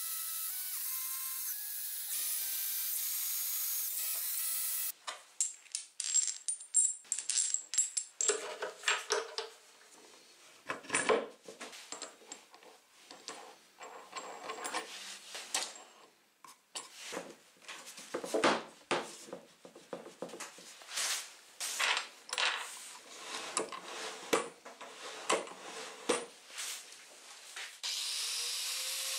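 A cordless drill runs for about five seconds driving screws into a pine board. Then come irregular knocks, clinks and rubbing of wooden parts and metal bolts, washers and wing nuts being handled and fitted together. Near the end an angle grinder starts up and runs steadily.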